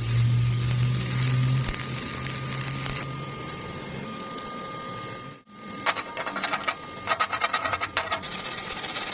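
Stick welding thin plate with a 2 mm electrode at 50 amps: a steady crackling hiss over a low hum. About five and a half seconds in it cuts to a chipping hammer striking the weld bead in a quick series of sharp taps, knocking off the slag.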